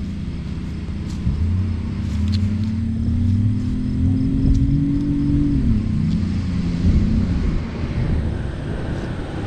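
A Jeep's engine accelerating hard on a dirt drag strip, its pitch climbing steadily for about four seconds. The pitch drops just past halfway through, then the engine carries on at a lower, unsteady pitch.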